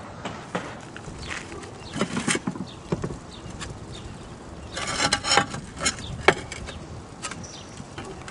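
Ridge cap tiles being handled and set in place on a tile roof: scattered knocks and clicks of tile on tile, with a longer scrape about five seconds in, and boots shifting on the roof tiles.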